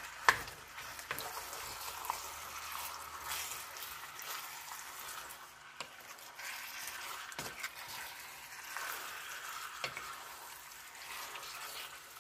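Seasoned chicken pieces sizzling in hot oil and curry powder in a nonstick pan while being stirred with a spoon, which knocks against the pan a few times. This is the chicken searing in the browned curry oil before the pot is covered.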